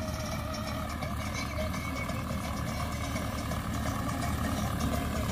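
Preet 6049 tractor's 60 HP diesel engine running steadily under load in second high gear while driving a PTO cutter through straw, getting slightly louder as it comes closer.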